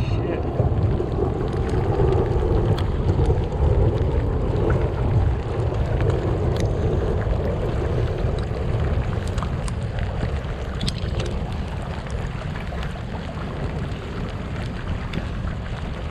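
Wind buffeting the microphone over water rushing and splashing along a pedal kayak's hull as it is pedaled fast, with scattered small ticks.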